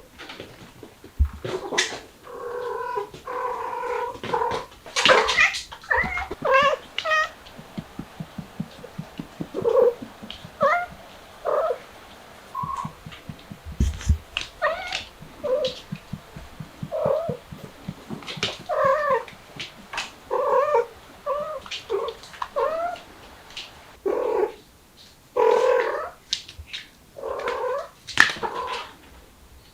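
A cat meowing and caterwauling over and over in short, drawn-out calls, with stretches of low, fast, even pulsing between the calls and a couple of low thumps.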